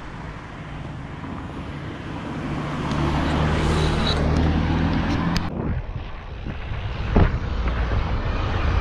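A motor vehicle's engine hum growing louder as it approaches, then cut off abruptly about five and a half seconds in; after that, a low rushing noise with a couple of sharp clicks.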